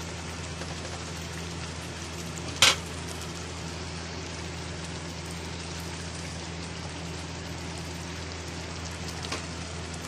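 Thick paneer gravy simmering and sizzling in a metal kadai over a steady low hum, with one sharp knock about two and a half seconds in and a fainter one near the end.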